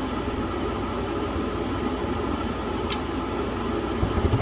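Gas furnace's draft inducer motor running steadily during start-up, with a faint tick about three seconds in. Near the end a low rumble sets in as the gas burners light.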